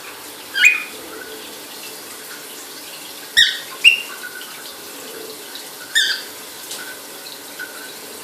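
Shower water running steadily while a cockatiel gives four short, high chirps: one about half a second in, two close together around three and a half seconds, and one near six seconds.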